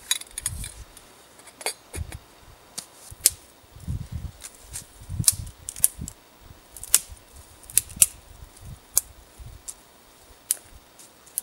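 Dry dead striped maple sticks snapped by hand into twigs: a string of sharp cracks, one every half second to a second, with soft knocks as the pieces land on the pile.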